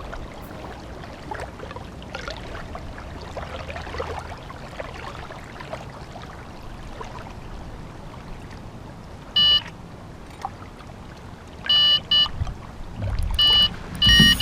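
Electronic carp bite alarm beeping: one beep, then a pair, then more beeps coming closer together near the end, the sign of a fish taking line. A faint steady hiss lies under it.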